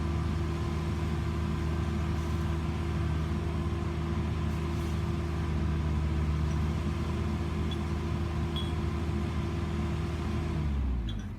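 A vehicle engine running steadily at raised revs. Near the end the revs fall and the sound drops in pitch and level.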